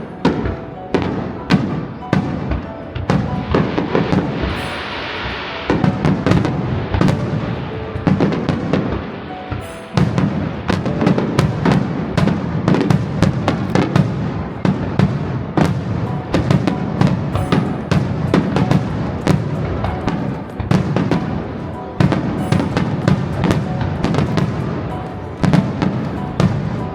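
Fireworks display: aerial shells bursting one after another in a rapid, dense barrage, with a stretch of crackling about five seconds in. Music plays underneath.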